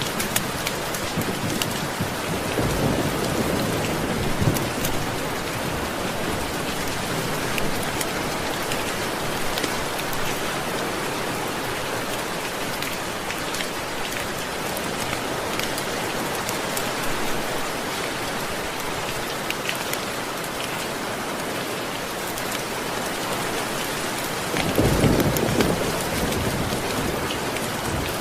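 Steady rain with two low rumbles of thunder, one a few seconds in and one near the end. Scattered sharp crackles of a wood fire sound through the rain.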